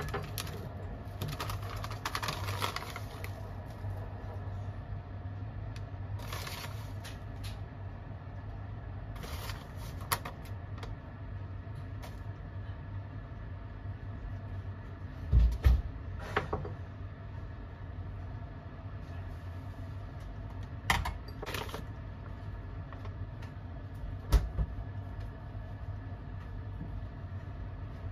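Foil pouches crinkling and rustling as they are handled, with several knocks of things set down on a counter, the loudest about halfway through, over a steady low hum.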